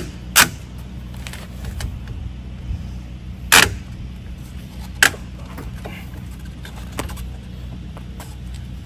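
A few sharp clicks and knocks, spaced a second or more apart, from a bike being fitted and clamped into a hitch-mounted bike rack, over a steady low hum.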